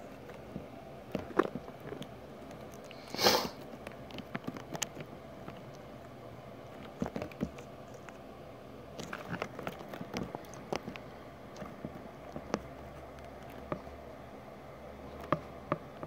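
Handling noise: scattered light clicks and taps over a steady low hiss, with one louder rustle about three seconds in.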